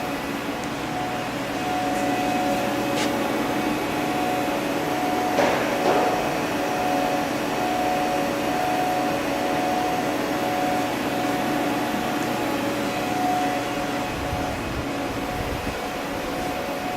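Haas VF-4 vertical machining center running with a steady mechanical hum carrying several steady tones, with a faint click about three seconds in and a brief louder rush of noise about five and a half seconds in.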